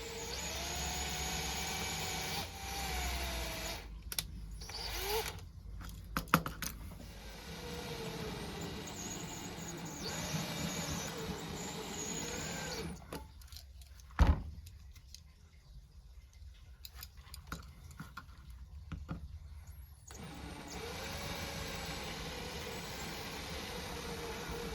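A small electric power tool running in spells, its motor pitch dipping and recovering as it takes load. The motor pauses for several seconds in the middle, with a few clicks and one sharp knock.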